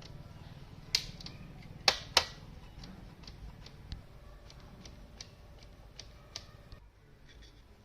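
Irregular clicks and taps, with three sharp knocks in the first couple of seconds and fainter ticks after, over a low rumble.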